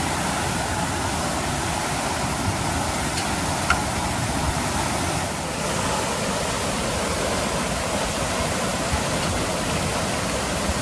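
Water gushing from a fire hydrant sheared off by a vehicle, a steady unbroken rush of the spray column pouring down onto the pavement and curb.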